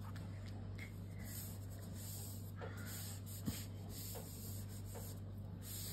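Sheets of patterned paper rustling and rubbing as they are handled and smoothed flat by hand on a desk, with a single light knock about three and a half seconds in.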